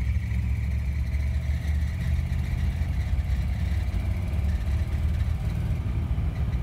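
Steady drone of a 1957 Ford's 312 Y-block V8 with four-barrel carburettor and Fordomatic automatic, together with road and tyre noise, heard from inside the cabin as the car gathers speed to about 40 mph.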